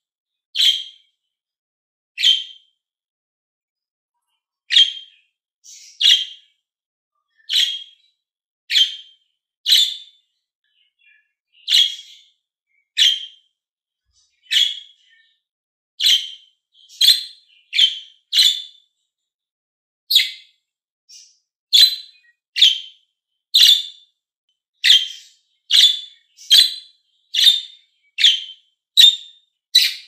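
Budgerigar giving short, sharp chirping calls one at a time, about one a second with a few pauses, coming faster, nearly two a second, over the last several seconds.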